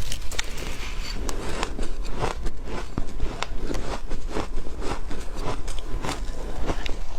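Close-up chewing and crunching of ice, a fast irregular run of sharp crunches at about two to three a second.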